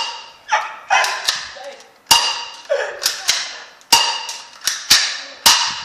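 BB gun firing repeatedly: about ten sharp cracks over six seconds, irregularly spaced and some in quick pairs, each with a short ringing tail.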